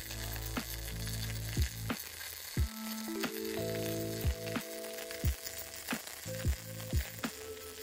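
MIG (gas metal arc) welding arc crackling and sizzling steadily as a fillet weld is run with straight argon shielding gas, the erratic arc and globular transfer that straight argon gives. Background music with a steady beat plays under it.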